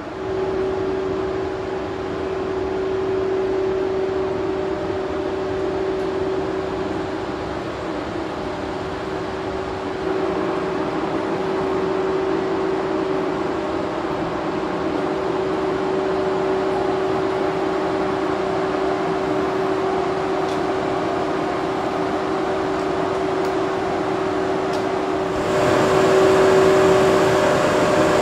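Steady hum and whir of a standing EF81 electric locomotive's auxiliary machinery, with one held mid-pitched tone throughout. It grows louder and fuller about 25 seconds in.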